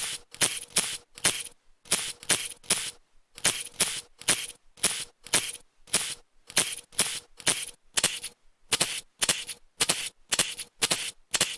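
Cordless impact tool firing in short, rapid bursts, about three a second, as bolts are run out of an engine's lower casting one after another.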